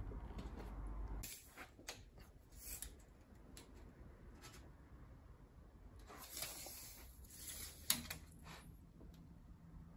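Faint handling sounds of a steel tape measure being pulled out and laid along the edge of a steel door's glass opening: scattered small clicks and rustles, a short scraping stretch, and a sharp click about eight seconds in.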